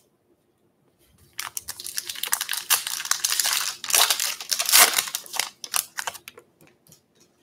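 Foil baseball-card pack being torn open and crinkled by hand: a dense crackle of the foil wrapper that starts about a second and a half in, is loudest midway and thins to a few light rustles near the end as the cards come out.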